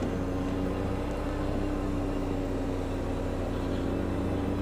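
Motorcycle engine running steadily at an even speed, one held note with a low hum beneath it.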